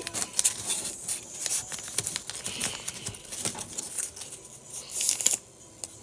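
Paper being folded and creased over and over into a thick stick: irregular crinkling and rustling, dying away about half a second before the end.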